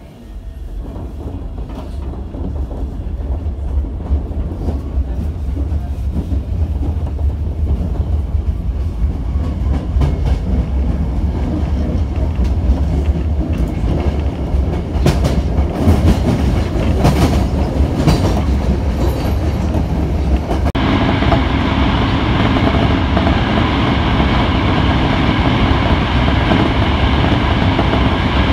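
Osaka Metro 20 series electric train running, heard from inside the car: a steady rumble of wheels on rails with a few rail-joint clicks, growing louder as it gets under way. About two-thirds of the way through, the noise turns abruptly louder and brighter as the train runs in a tunnel.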